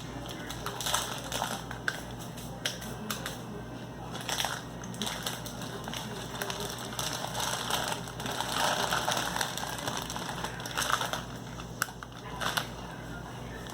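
Plastic snack packaging crinkling and crackling as it is handled, in irregular bursts of sharp crackles.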